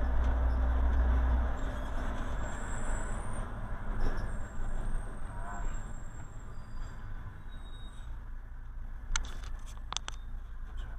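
Engine and road noise heard from inside a moving vehicle: a deep engine drone that drops away about a second and a half in, then tyre and road noise fading as the vehicle slows. A few sharp clicks near the end.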